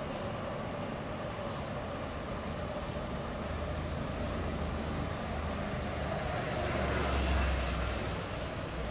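Steady city street noise with the low rumble of a passing vehicle, which builds and swells loudest about seven seconds in before easing off.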